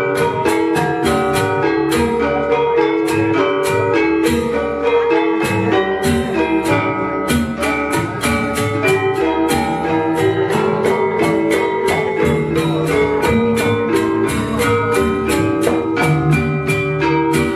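Balinese gamelan selonding, an ensemble of iron-keyed metallophones struck with mallets, playing a steady, fast run of ringing notes.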